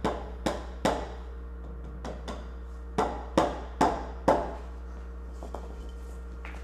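Hammer strikes on the wooden kayak rack, tapping pieces into place: three blows at the start, then after a short pause four more, each about half a second apart.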